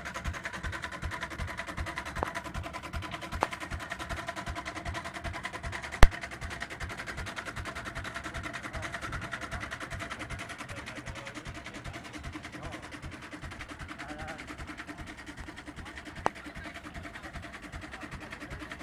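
Old single-cylinder stationary engine with a heavy flywheel running at a steady, even beat while it drives a water pump. A single sharp crack sounds about six seconds in.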